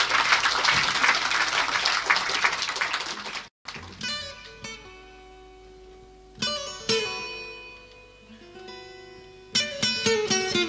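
Audience applauding, cut off sharply after about three and a half seconds. Then a guitar plays sparse ringing notes and a few strummed chords with pauses between them, the opening of a live song.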